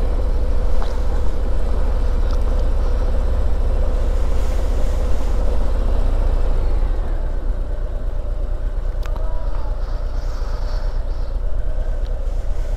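Harley-Davidson Ultra Limited's V-twin engine running steadily as the motorcycle rides at low speed, over a heavy low rumble of wind and road noise.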